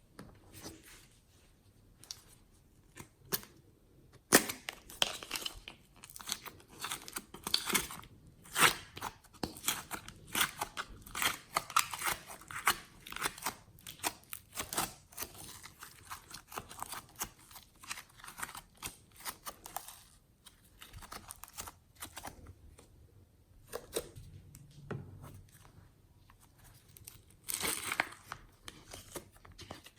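Glossy slime being squished, pressed and stretched by hand: dense runs of sticky clicks and crackles, thinning out for a while before a loud burst near the end.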